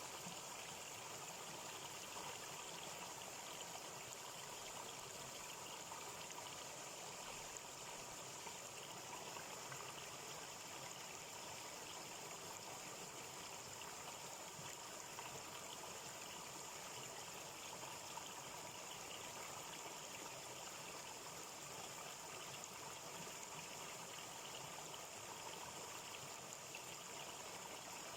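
A stream running steadily, water trickling without a break.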